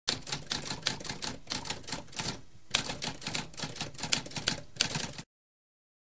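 Typewriter typing: a rapid run of key strikes, a short pause a little past two seconds, then more typing that stops abruptly about five seconds in.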